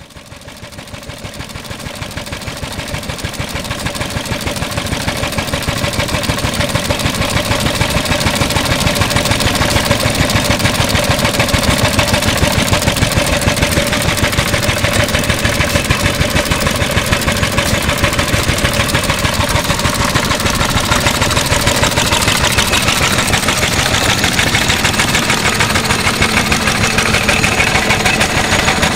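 Yoshida Type C 2.5 hp single-cylinder, hopper-cooled agricultural oil engine from about 1937, running steadily with an even, rapid rhythm of exhaust beats and mechanical clatter. The sound fades in over the first several seconds.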